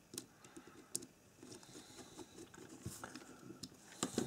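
Faint small clicks and scratches of a tiny screw being turned into the plastic and metal body of an H0 model steam locomotive, with a few louder clicks about four seconds in.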